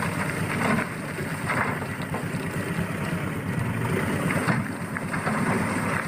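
Isuzu Elf dump truck running steadily as its tipper bed is hoisted, a rough, even vehicle noise.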